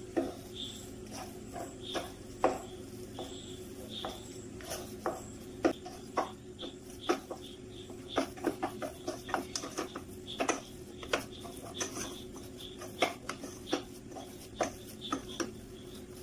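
Wooden spatula mixing a soft mashed-potato and chicken filling in a nonstick pan, with irregular knocks and scrapes as it strikes the pan, over a low steady hum.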